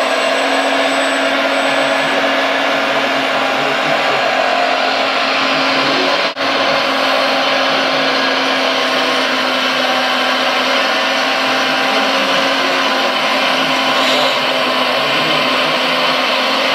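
Premacon Liebherr R956 RC hydraulic excavator working: a steady motor and hydraulic-pump whine blended with its onboard sound module's diesel engine sound. The sound drops out briefly about six seconds in.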